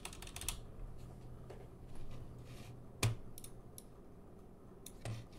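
Scattered taps and clicks on a computer keyboard, with one sharper click about three seconds in.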